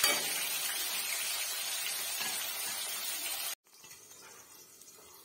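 Pieces of raw jackfruit frying in hot oil in an aluminium kadai, a dense steady sizzle. A little past three seconds in it drops abruptly to a faint hiss, with the lid on the pan.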